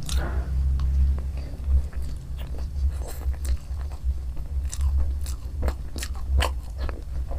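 Close-miked chewing of spicy fried chow mein with egg: irregular wet mouth clicks and smacks over a steady low hum.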